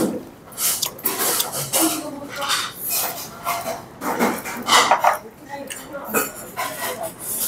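Metal chopsticks clicking and clinking against plates and stainless steel bowls as diners pick at food at a table, in a string of short irregular clinks.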